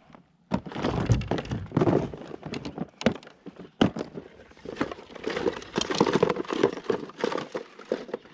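A rapid, irregular run of knocks, thunks and rattles from handling gear on a kayak while a hooked smallmouth bass is being unhooked.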